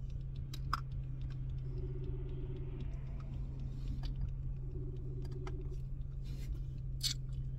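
Phone ringback tone heard over speakerphone while a call rings: a low buzzing tone about a second long that repeats about every three seconds, sounding twice. Under it runs a steady low hum, with scattered small clicks.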